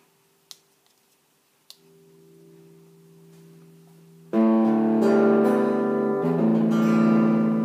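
Organ playing long held chords through a boost unit: a quiet chord from about two seconds in, then much louder chords from about four seconds in, changing once more near the end. Two faint clicks come before the playing.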